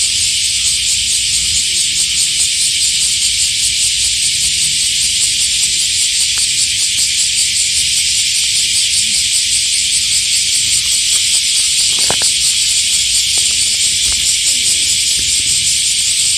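Loud, steady chorus of summer cicadas, a dense high-pitched shrill with a fine pulsing texture.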